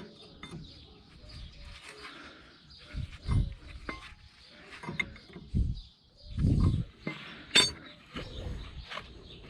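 Irregular metallic clinks and a few dull knocks from hand tools working on a front wheel hub, as the bearing's spindle nut is adjusted, with a sharp click about three-quarters of the way in.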